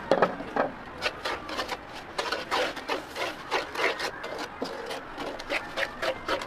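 Wooden spatula scraping and stirring butter and sugar around a nonstick wok, a rapid uneven run of rough scrapes about two or three a second, opening with one louder bump. This is the stirring stage of melting butter, sugar and rice syrup into the coating for oranda.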